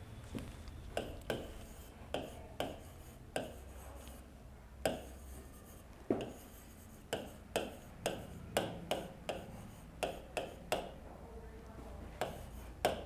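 Marker writing on a board: irregular short taps and scratchy strokes as letters are drawn, some coming in quick clusters.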